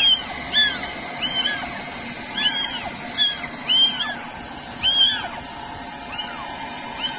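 Young kittens mewing over and over, about a dozen short, high-pitched cries that rise and fall, some overlapping one another.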